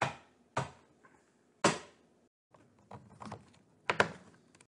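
Objects being handled and set down on a table during unpacking: a series of sharp knocks and clatters at irregular intervals, with a quick cluster of them near the end.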